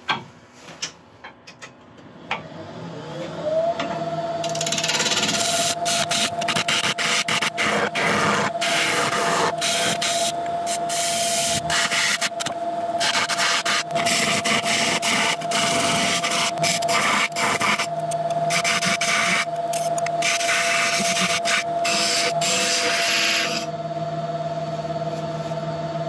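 Record Power Regent wood lathe spinning up with a rising whine, then holding a steady whine while a turning tool cuts a tenon into the end of a monkey puzzle blank. The cutting is a loud hiss of shavings, in passes with short breaks, and stops a few seconds before the end while the lathe keeps running.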